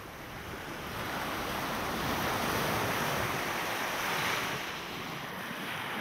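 Small waves washing up on a sandy beach: a hiss of surf that swells about a second in and eases off near the end.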